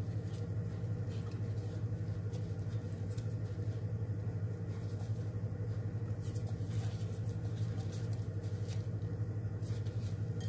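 A steady low hum, with a few faint clicks and soft rustles as marinated shrimp skewers are laid by a gloved hand into an air fryer basket.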